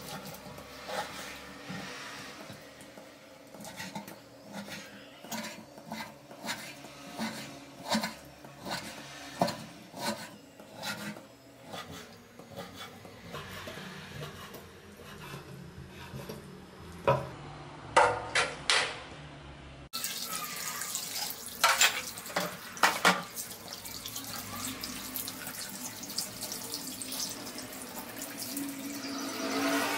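A kitchen knife chopping raw meat on a wooden cutting board: a long series of sharp knocks, with a few much louder ones in the second half. Near the end, tap water runs into a stainless steel sink.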